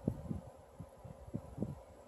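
Faint handling noises: a few soft, short knocks and rubs, a little louder near the start, over a steady faint hum.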